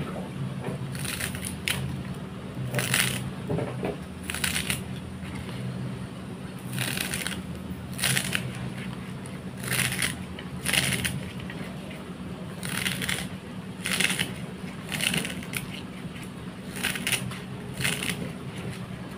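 Crisp snips as green onion leaves are cut into short pieces over a bowl of tofu cubes, one cut roughly every second, over a steady low hum.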